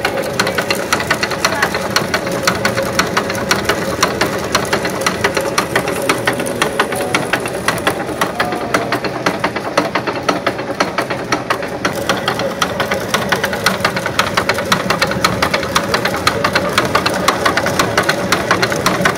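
Water-powered gristmill grinding: a fast, steady wooden clatter from the feed shoe under the grain hopper, knocked by the stick turning in the millstone's eye to shake grain down into the stones, over the continuous hum of the turning millstones.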